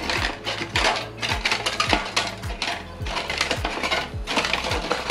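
Thin aluminium-foil stove windscreen crinkling and rattling as it is handled and set in place, over background music with a steady bass beat.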